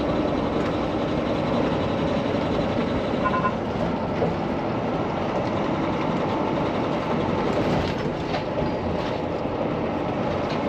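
Steady engine and road noise inside the cab of a Peterbilt semi truck cruising at highway speed. At this speed, in the higher gears, the driver says the knocking heard in the lower gears goes away.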